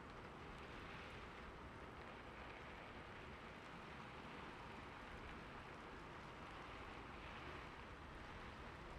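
Steady rain falling, a faint, even hiss with no distinct drops or breaks.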